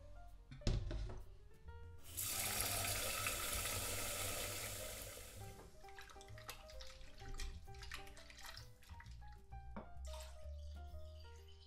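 Water running from a tap for about three and a half seconds, starting about two seconds in and tailing off, over background piano music. A single sharp knock comes near the start.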